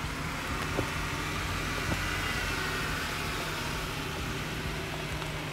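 Jeep Wrangler engine running steadily at low revs in first gear as it crawls down a steep dirt slope, with a couple of faint clicks.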